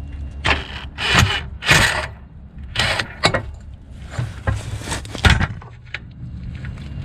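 Irregular clanks, clicks and scrapes of a wrench and other tools being handled against the metal underside of a golf cart, with a few sharper knocks among them.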